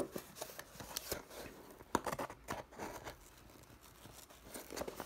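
Scissors snipping and scraping at the sealed tape of a small cardboard shipping box, with the cardboard rattled as it is handled; a few sharp clicks, with a quieter stretch past the middle. The seal is hard to cut through.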